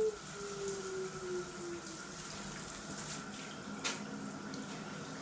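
Handheld shower head spraying a steady stream of water onto a cat's coat, with a faint falling tone in the first two seconds and a sharp knock about four seconds in.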